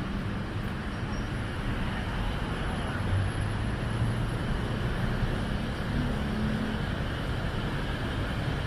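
Steady city street traffic noise: passing cars and engines making a continuous low hum.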